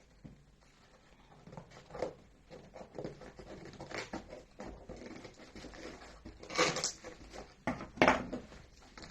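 Gift packaging rustling and crinkling as it is handled and unwrapped, with many small crackles. Two louder crinkling bursts come a bit past halfway and near the end.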